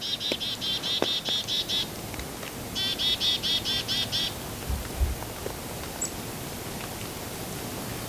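A songbird singing two trilled phrases of quickly repeated high notes, about eight a second, each phrase lasting one to two seconds. A couple of low thumps follow the second phrase.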